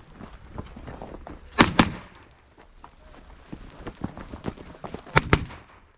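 Sig MCX Spear rifle fired in two double taps: two shots about a fifth of a second apart, then another pair about three and a half seconds later. Fainter knocks in between.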